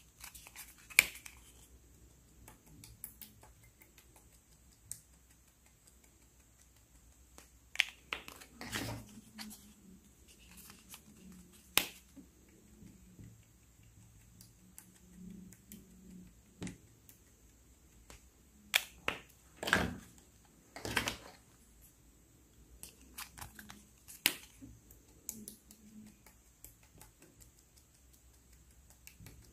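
Scattered clicks and soft taps from handling plastic highlighter pens: caps pulled off and felt tips dabbed into clear slime. A few sharper clicks stand out, one about a second in and a cluster about two-thirds through.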